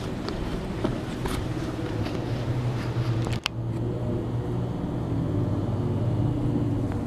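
GreenWorks GPW1600 electric pressure washer running: a steady motor-and-pump hum with the hiss of the water spray, with a brief break about three and a half seconds in.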